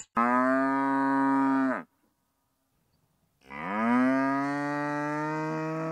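Cow mooing twice: two long, drawn-out calls with a silent gap between. The second begins about halfway through, sliding up in pitch before holding steady.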